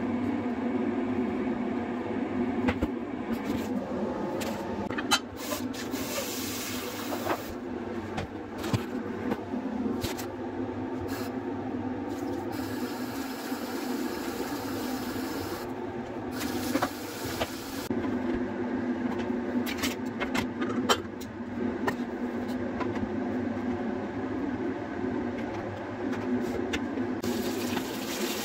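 Kitchen cooking sounds: a steady low hum under scattered clinks and knocks of a spatula, tongs and bowls against pans and dishes.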